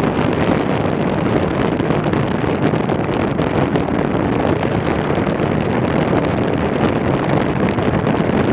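Small boat under way: a steady rush of wind noise on the microphone, with the low drone of its motor underneath.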